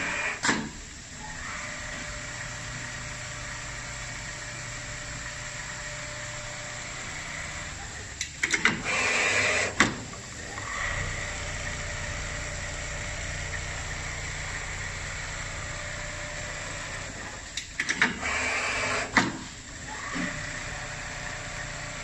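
CUDA automatic template sewing machine running with a steady mechanical hum. Twice, about eight and eighteen seconds in, it breaks into a short, louder burst of clatter and clicks about a second and a half long.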